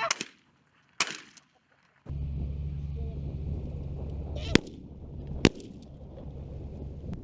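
Shotgun shots at incoming pigeons: two loud blasts about a second apart, then, after a brief hush, two more sharp shots about a second apart over a steady rumble of wind on the microphone.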